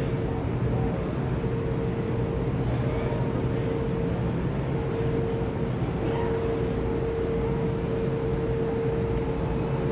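Steady background noise of a busy train station, with a low hum and a steady mid-pitched tone that drops out briefly a few times.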